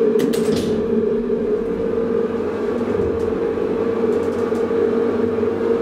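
Hydraulic elevator car with a steady mechanical hum holding a few fixed tones, and a quick cluster of clicks just after the start as the floor button is pressed.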